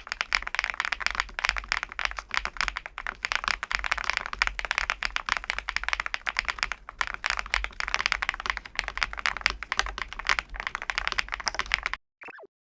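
Continuous fast typing on the MonsGeek M2 V5 VIA, a gasket-mounted mechanical keyboard with an aluminium case: a dense run of key clicks that stops abruptly about a second before the end, followed by a brief falling tone.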